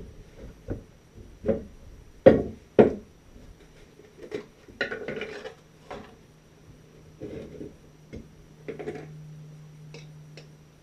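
Camp cooking gear being handled: a string of sharp knocks and clacks, the loudest two close together about two and a half seconds in, then rustling clatter and lighter clicks, with a faint low steady hum coming in about halfway through.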